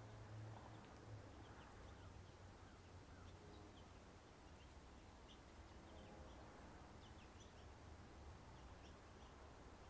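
Near silence outdoors, with faint, scattered bird chirps.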